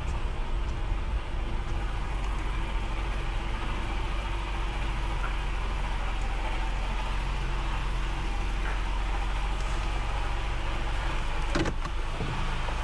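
2017 Honda Accord running as it rolls slowly past at low speed, a steady engine hum with tyre noise.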